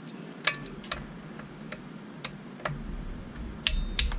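Torque wrench clicking as a nut on a chainsaw's bumper spike is tightened: single clicks every half second or so, then two louder, ringing metallic clicks near the end.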